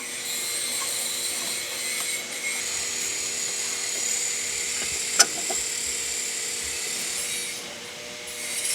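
Air ratchet running steadily with a high whine, spinning a nut down on the Mercedes E320 front suspension, with a sharp click about five seconds in.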